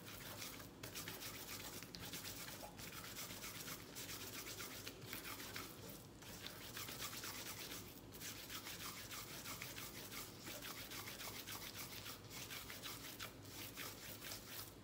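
Gloved hands rubbing and squishing minced beef while shaping kofta: a soft, continuous scratchy rubbing broken by short pauses every second or two.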